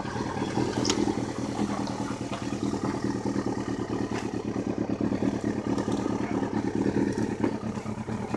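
Kawasaki sport bike engine idling steadily while still warming up.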